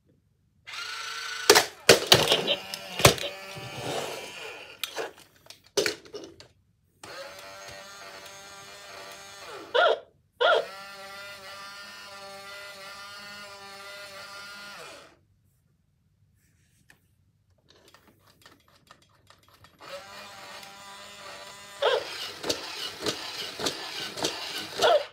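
A robotic toy puppy making electronic sounds through its small speaker while its motors whir and click as it moves. There is a long steady electronic tone in the middle, a pause of a few seconds, then more tone and clicking near the end.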